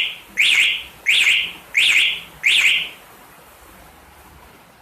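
Motorcycle alarm siren sounding its bike-locator signal: a train of loud electronic chirps, each a quick up-and-down sweep in pitch, repeating about one and a half times a second. The chirps stop about three seconds in.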